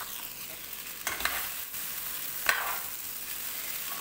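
Boiled noodles being stir-fried with a chicken masala mixture in a hot pan: a steady sizzle, with a few short scraping stirring strokes about a second in and again near the middle.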